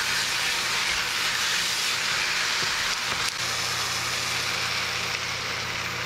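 Enoki mushrooms and shredded vegetables sizzling steadily in a hot oiled wok while a wooden spatula stirs them, with water poured into the pan over the second half. A low steady hum runs underneath and grows stronger about a third of the way in.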